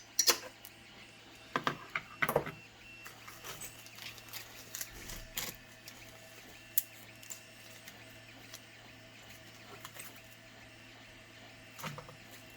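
Scattered small metallic clicks and clinks from handling Helicoil thread inserts and the insertion tool, busiest in the first few seconds and again near the end, over a faint steady hum.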